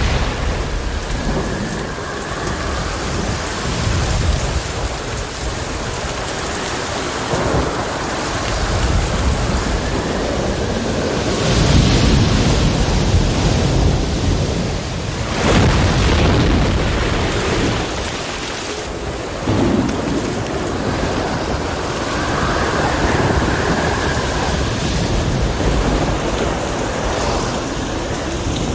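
Thunderstorm with heavy rain over a rough sea: a steady roar of rain and surf, with several louder swells of rumbling thunder or breaking waves, the strongest about 12 and 16 seconds in.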